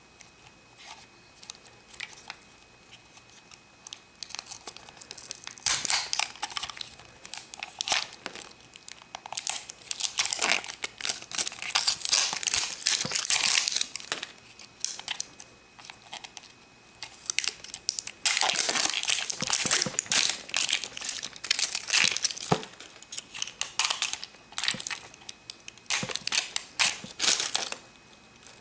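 Clear plastic wrapper crinkling and tearing as it is peeled off a plastic toy case, in two long spells of handling with a quieter pause midway.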